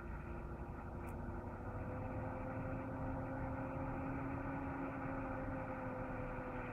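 Jeep engine running steadily, its note rising a little about two seconds in and then holding.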